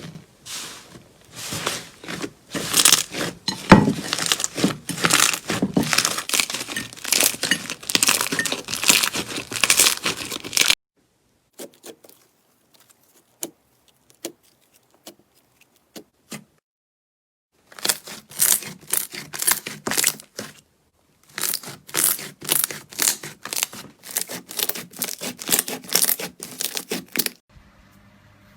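Slime being squeezed and worked by hand, making dense crackling and popping clicks. It breaks off suddenly into a few scattered clicks, then the dense crackling starts again and stops near the end.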